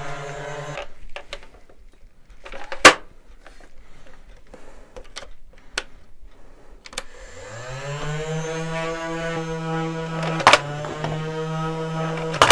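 Battery-powered Blaze Storm foam-dart blaster: a few clicks and one loud snap as it is handled, then about seven seconds in its motor spins up with a rising whine and runs at a steady drone, with sharp clicks as it fires near the end.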